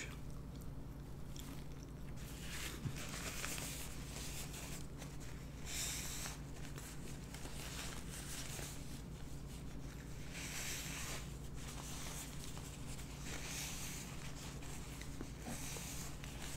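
Paper napkin rustling in several soft spells as hands are wiped and the mouth is dabbed, over a steady low hum.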